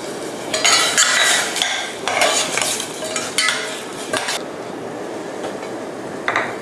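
A utensil stirring and scraping sliced grilled pork around a pot as seasonings are mixed in, in several rough bursts over the first four seconds, with a faint sizzle underneath from the pot still on the heat.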